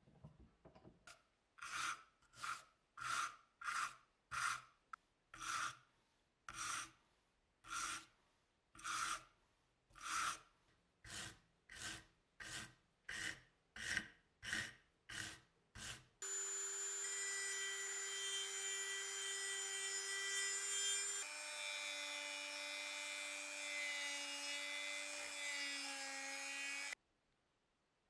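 Abrasive block rubbed by hand in back-and-forth strokes against a brass Zippo lighter case held in a vise: about twenty separate scraping strokes, quickening toward the end. Then a steady sound of several held tones takes over for about ten seconds, shifts in pitch halfway through and stops abruptly.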